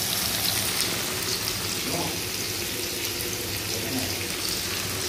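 Marinated fish pieces frying in hot oil in a pan: a steady sizzle.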